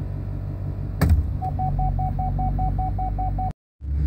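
Duramax 6.6L V8 turbodiesel idling at its normal base idle of about 750–800 RPM, the cold-weather elevated idle having just been cancelled by a touch of the brake. About a second in there is a click, followed by a rapid electronic beeping, about six beeps a second for two seconds; the sound cuts out for a moment near the end.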